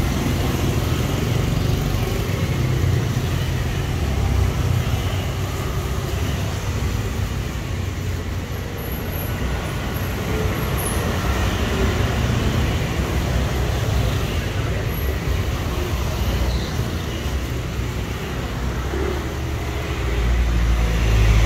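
Steady street traffic noise of motor vehicles running past, with a low rumble growing louder near the end.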